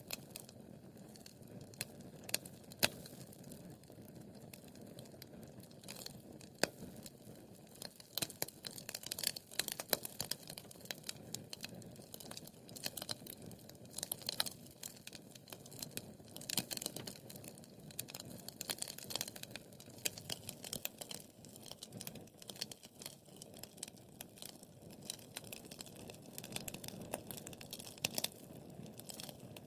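Wood fire burning in a fireplace: a low hiss of flame under frequent sharp crackles and pops, busier from about eight seconds in.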